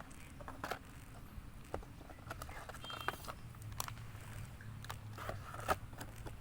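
Irregular crackles and sharp clicks of plastic ration packaging being handled and crinkled, over a faint steady low hum.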